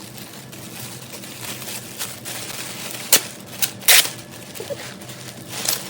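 Packaging and a handbag being handled during an unboxing: light rustling with several sharp clicks and taps, the loudest about three and four seconds in and another near the end.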